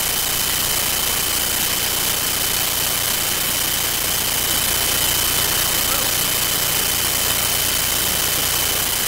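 Loud steady hiss with a thin constant high whine running under it, and faint, barely audible speech beneath.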